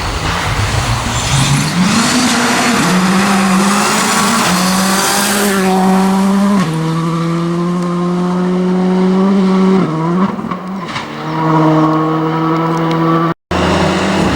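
Rally car engine pulling hard past the spectators, its pitch climbing and stepping through several gear changes, over the hiss of tyre noise. The sound cuts out for a moment near the end.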